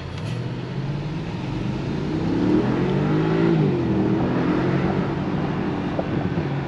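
Mercedes-AMG GLE 63 S's twin-turbo V8 heard from inside the cabin while the SUV accelerates. Its note rises in pitch, dips about halfway through, then holds steady.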